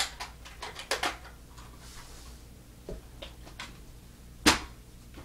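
A few scattered knocks and clicks, the loudest a sharp thud about four and a half seconds in.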